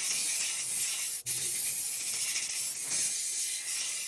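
A steady high hiss, like a jet of spray or air, with a momentary break about a second in.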